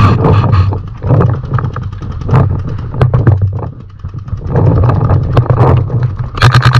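Paintball markers popping in scattered single shots over a heavy low rumble of wind on the microphone. Near the end, a marker fires a rapid string of about a dozen shots a second for just over a second.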